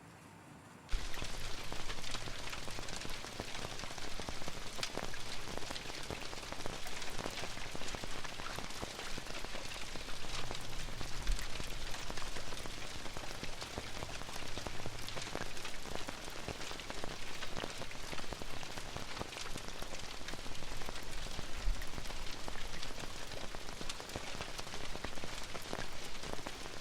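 Steady rain with many individual drops tapping on a roof, starting suddenly about a second in.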